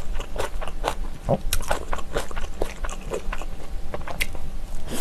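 Close-up sounds of a person eating Chapagetti black bean instant noodles: chewing with many short, irregular mouth clicks.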